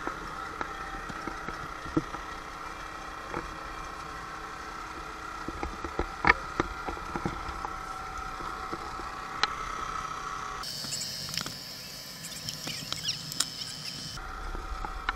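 A boat's motor running with a steady hum, with scattered knocks and clunks on the boat. For a few seconds near the end the hum suddenly gives way to a higher steady whine, then returns.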